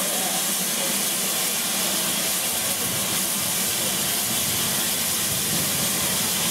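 Steam hissing steadily from a standing steam locomotive.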